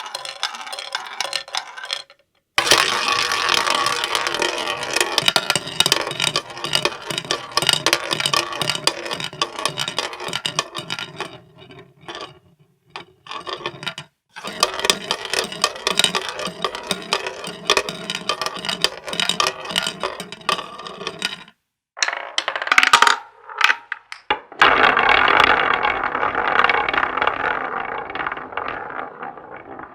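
Casino sound effects: dense rapid clinking like coins pouring, with ringing chime-like tones over it, in several separate clips cut by short silences. The last clip fades out.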